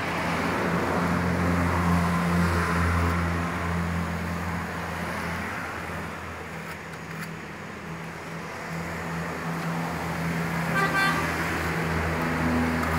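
A motor vehicle engine running steadily as a low hum, with street traffic noise, and a short car-horn toot about eleven seconds in.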